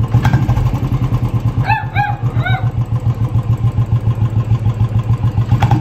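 Royal Enfield Bullet's single-cylinder engine idling with a steady, even pulsing beat. About two seconds in, a dog gives three short whining cries that rise and fall in pitch.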